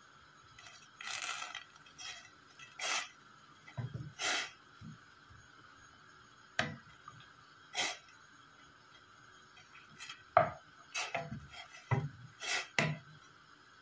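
Wooden slotted spatula stirring and pressing mint leaves and an orange in water in a stainless steel pot: a dozen or so irregular scrapes and knocks of wood against the pot, the sharpest about ten seconds in.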